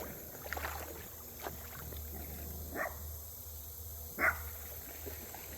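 A dog giving two short, low woofs about a second and a half apart, alerting to something it has seen or heard.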